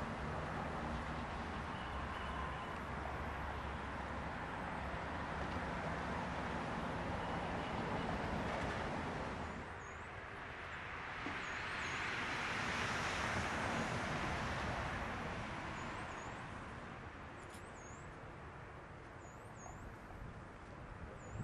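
Steady outdoor road-traffic noise, with one vehicle swelling past and fading about halfway through. Near the end a small bird chirps repeatedly in short, high notes.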